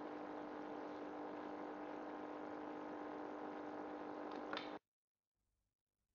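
Steady background hiss with a low steady hum, room tone under the closing title, with a faint click just before it cuts off abruptly to dead silence about three-quarters of the way through.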